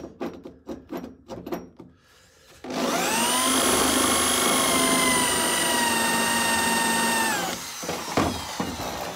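Electric drill with a spot weld cutter bit drilling out a factory spot weld in the steel cab floor rail: a loud, steady motor whine for about five seconds that winds down in pitch as the trigger is released. A few clicks and taps come before the drill starts and after it stops.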